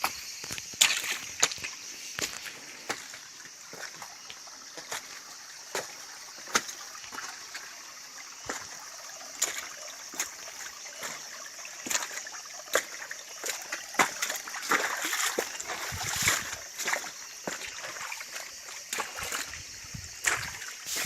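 Irregular sharp clicks and splashy, water-like sounds over a steady high hiss, thickening into denser clicking a little past the middle.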